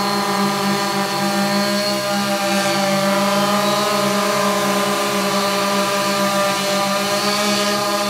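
Hum of an X8 octocopter's eight Rc Tiger U5 400kv motors spinning 15-inch carbon fibre propellers, hovering and manoeuvring while carrying about 5 lb of extra test weight. It is a steady, many-toned drone with a throbbing beat where the motors drift in and out of step.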